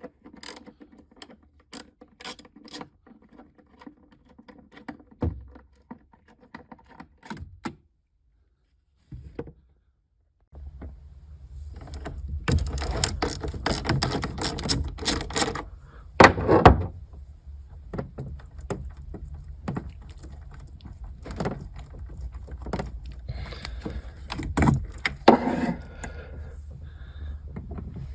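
Handling noises of hand work: scattered clicks, knocks and rattles, as of tools and parts being handled. From about ten seconds in a steady low rumble lies under denser clatter, with a couple of louder knocks.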